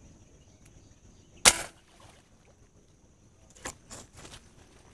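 An air gun firing a fishing dart: one sharp crack about a second and a half in. Later come a few short knocks and rustles as plants on the bank are brushed.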